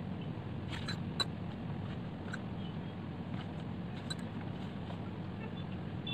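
Steady low background hum with a few small clicks and taps as the painted board is turned and handled on the table: a little cluster about a second in, then single taps near two and four seconds.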